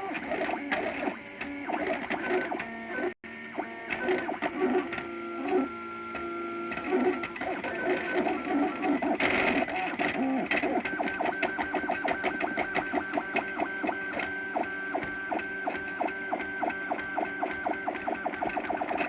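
MakerBot Thing-O-Matic 3D printer's stepper motors whining in steady tones that jump from pitch to pitch as the print head moves, laying down one of the final layers. From about eleven seconds in, a fast run of short moves makes a rapid ticking under the tones.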